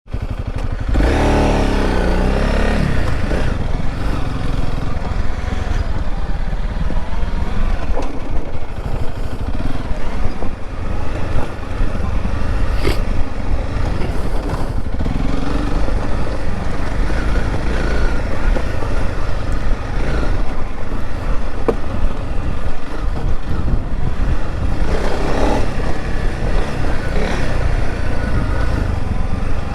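Honda CRF300L Rally's single-cylinder engine running under load off-road, its pitch rising and falling with the throttle and revving up sharply about a second in and again near the end. An occasional sharp knock is heard over it.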